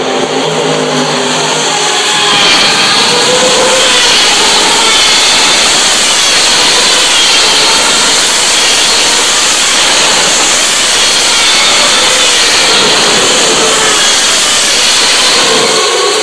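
Formula One cars' 2.4-litre V8 engines passing close by one after another, a loud high-pitched engine scream whose pitch rises and falls as each car goes past. It grows much louder about two seconds in, heard through a phone's microphone.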